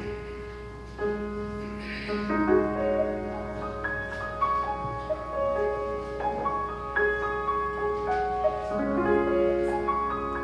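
Slow instrumental offertory music on a keyboard: long held chords under a moving melody line.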